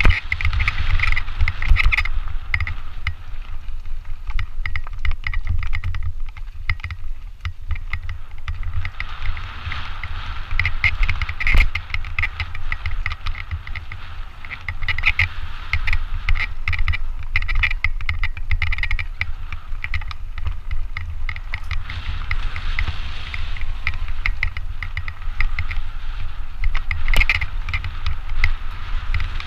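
Mountain bike riding fast along a gravel singletrack, heard from a camera on the rider: a steady low rumble of wind on the microphone, with tyres crunching over gravel and the bike rattling over bumps. There are sharp knocks about twelve seconds in and again near the end.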